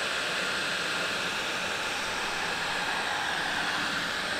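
Electric heat gun running steadily: a constant rush of blown hot air with a faint whine, shrinking heat-shrink tubing over a solar panel connector.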